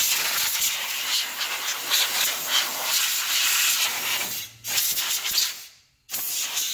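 Compressed air hissing from a Central Pneumatic telescoping blow gun as it blasts dirt out of a car's engine bay. The air is let off in long bursts, cutting out briefly twice near the end.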